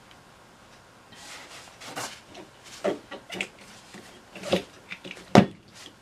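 Michelin motorcycle tire being pressed by hand onto an alloy wheel rim without tire irons: irregular rubbery scuffs and knocks of tire against rim, with one sharp thump near the end, the loudest.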